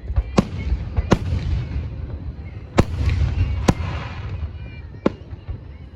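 Fireworks shells bursting: five sharp bangs a second or so apart, some followed by a trailing crackle.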